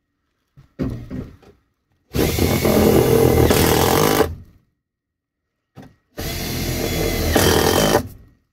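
Cordless drill/driver driving screws through the fan's ceiling box into the wooden framing, in two runs of about two seconds each.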